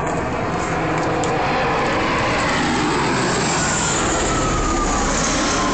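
Bell Boeing V-22 Osprey tiltrotor flying past: a loud, steady rumble of its proprotors and turboshaft engines, with a whine that falls in pitch from about three and a half seconds in as it goes by.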